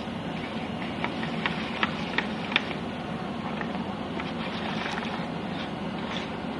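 Hands working a wet spice-and-lemon marinade into a whole chicken, with a handful of short sharp slaps in the first few seconds, over a steady low hum.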